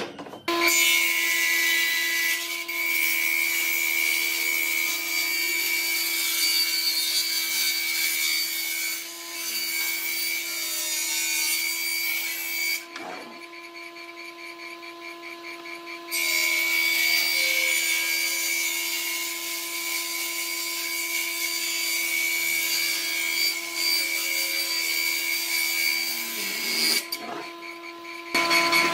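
Hitachi combination woodworking machine's table saw running, its circular blade ripping a board in two long cuts with a few seconds of free-running hum between them.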